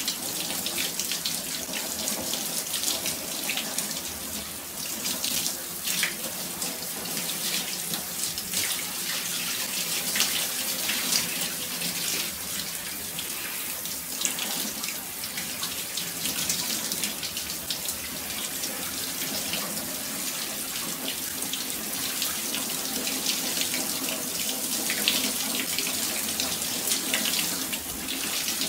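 A steady spray of running water splashing onto small plastic toy figures and a hard wet surface, a continuous hiss peppered with small splashes.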